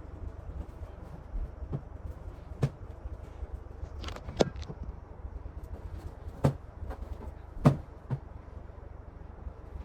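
A handful of sharp, irregular knocks and clicks, like household objects being handled and set down, over a steady low hum. The loudest knocks come about two thirds of the way in.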